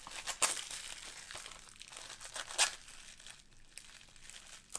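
Plastic shrink-wrap being peeled and torn off a DVD case, crinkling, with two louder rips, about half a second and two and a half seconds in.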